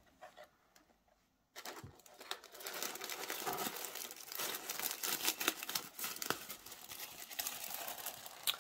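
Tissue paper crinkling and rustling as it is unwrapped and folded back by hand, starting about a second and a half in, with many small crackles.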